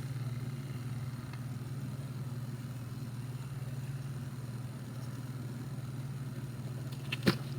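A steady low hum with a faint hiss behind it, and a short click near the end.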